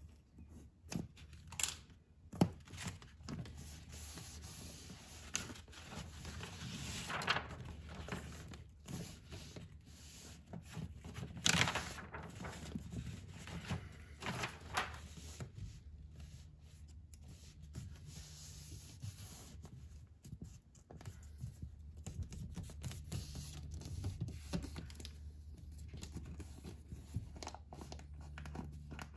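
Sound-deadening sheet being cut and fitted by hand to a car's bare inner door panel: scissor snips, tearing and rustling as the sheet is handled and pressed onto the metal, with scattered light knocks. Two longer, louder tearing sounds come about 7 and 11 seconds in.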